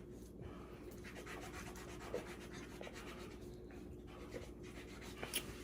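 Quiet pause: faint room tone with soft small clicks and light rubbing noise, and a slightly louder click about five seconds in.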